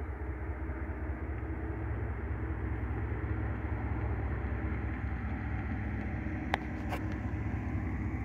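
Distant diesel locomotives of an approaching freight train, a Canadian Pacific unit leading: a low, steady engine rumble that slowly grows louder. Two short clicks come near the end.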